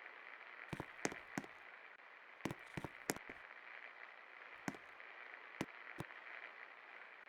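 56-inch Best Electric Works Desire ceiling fan running with a steady, quiet whoosh, broken by a few sharp, irregular clicks in the first six seconds or so.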